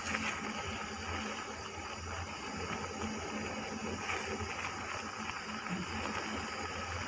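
Thick milk mixture bubbling in a nonstick pan as a spatula stirs and scrapes it, over a steady low hum.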